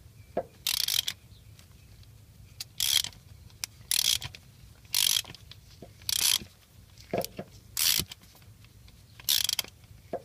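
Hand socket ratchet clicking in short runs about once a second, each run the pawl ratcheting as the handle swings back between slow turns. It is driving a Helicoil insert into a stripped bolt hole.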